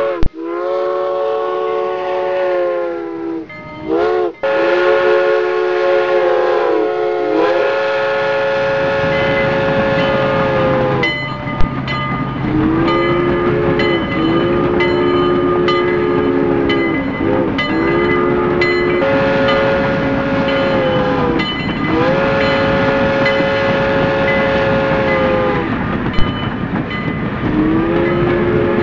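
Slow music of long held chords, the notes sliding in pitch each time the chord changes every few seconds, with a few sharp clicks.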